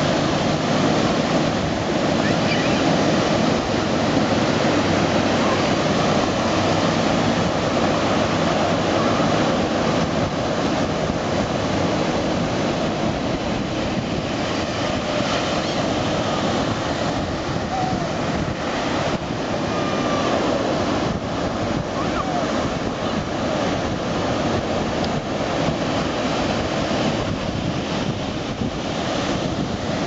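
Ocean surf breaking and washing in over the shallows, a steady, continuous rush of waves.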